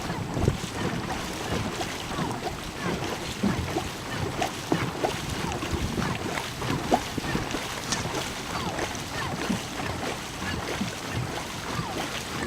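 Dragon boat under way: paddles dipping and splashing in an uneven run of strokes, with water rushing along the hull and wind buffeting the microphone.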